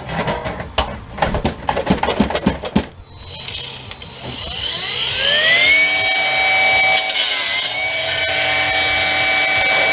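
A few seconds of irregular metal clattering and knocks, then an electric power tool spins up in a smooth rising whine and runs on at a steady high pitch, dipping briefly once partway through.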